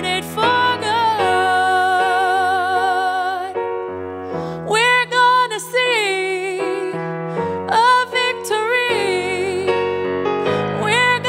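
A woman singing a worship song, holding long notes with a wavering vibrato, over sustained chords on an electric piano keyboard.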